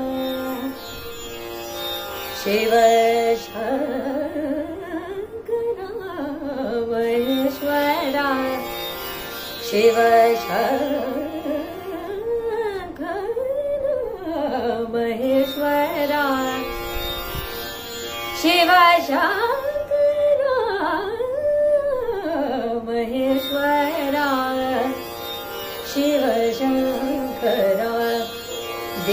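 Solo female Hindustani classical vocal, the voice sliding up and down in long curving, ornamented phrases over a steady drone.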